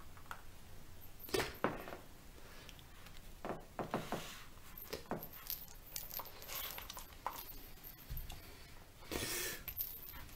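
Irregular light knocks, taps and clinks of small hard objects, a few at a time with pauses between.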